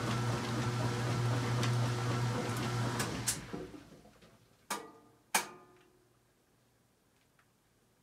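Kenmore 800 Series washer running with a steady hum that shuts off about three seconds in and dies away over the next couple of seconds, with several clicks, the two loudest about a second apart just before it falls quiet.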